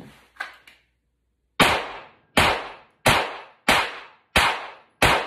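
Six pistol shots from a Glock 43X 9mm, fired as a Bill drill from the holster at a deliberate pace, roughly 0.7 s apart. The first comes about one and a half seconds in, and each is sharp with a short ringing tail.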